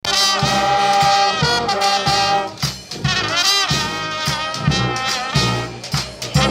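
Brass band playing: horns holding long pitched notes and short phrases over a steady low beat of about three hits every two seconds.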